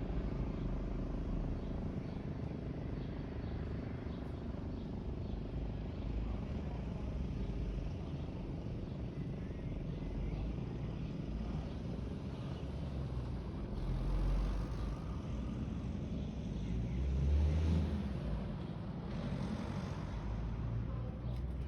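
Outdoor background rumble with a few vehicles passing, the loudest swelling a little past the middle.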